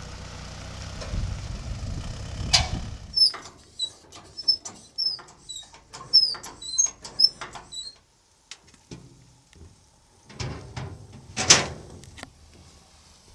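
Rhythmic metallic squeaking with clicks, about two squeaks a second for several seconds, from a car-transport trailer's hand-worked winch gear. An engine runs low in the first few seconds, and a loud clank comes near the end.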